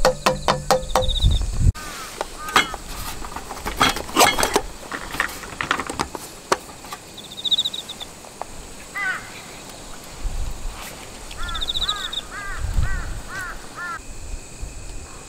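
A quick run of sharp clicks and clatter, then scattered taps. Later a bird calls in short repeated chirps, about five in a row near the end, with a brief high insect-like trill now and then.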